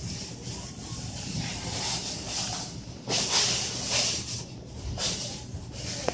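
Several brief rustling, crinkling noises over a steady low hum of store background noise, with a short sharp click near the end.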